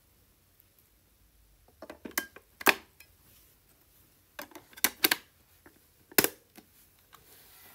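AA batteries pushed into a plastic battery compartment against its spring contacts, giving a few sharp clicks. Then the plastic battery cover is fitted and pressed shut, ending in one loud snap about six seconds in.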